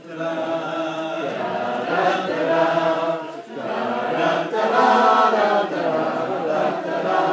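A small group of people singing together, with long held notes.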